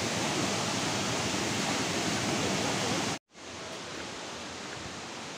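Steady rush of a waterfall, cut off abruptly a little over three seconds in. After a moment's silence, a fainter outdoor background hiss follows.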